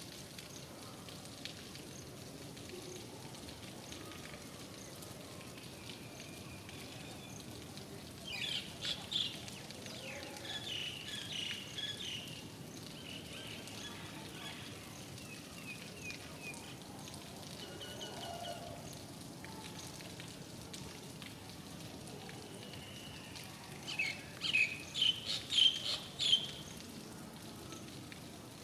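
Steady rain falling, with a bird calling in two bouts of quick high chirps: one about a third of the way in and a louder one near the end.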